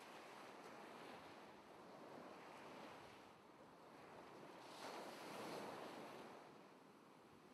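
Faint ocean surf: a soft, steady wash of small waves, swelling louder about five seconds in as a wave breaks and rushes in.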